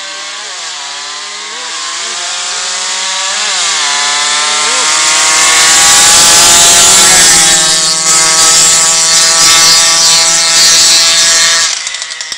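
Two racing mopeds' two-stroke engines buzzing at full throttle as they approach. The pitch dips and climbs a few times in the first seconds, then the engines grow louder and hold a steady high note before the sound cuts off near the end.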